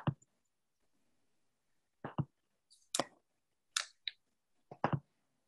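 Computer mouse clicking, about seven short clicks spaced unevenly, heard through a video-call microphone.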